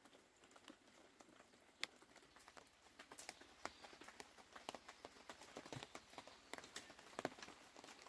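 Faint, scattered clicks and light knocks, coming thicker from about three seconds in: people handling and tying roofing materials.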